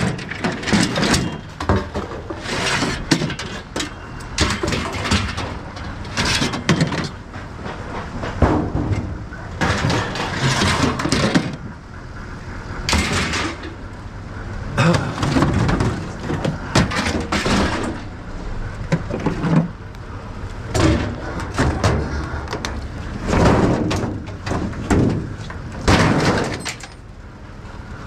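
Scrap metal being pulled out of a pickup truck's bed and thrown down, making a run of irregular clanks, bangs and scrapes.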